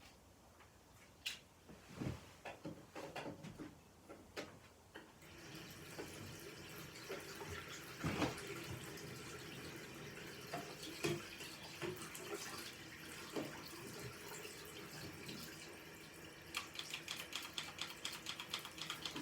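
Scattered clicks and knocks of plastic being handled, then a tap running steadily into a sink as a plastic water pistol is filled, with a quick run of small clicks near the end.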